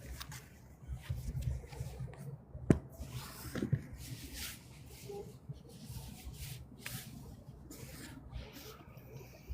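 Irregular rustling and scuffing noises over a low rumble, with one sharp click about a third of the way in.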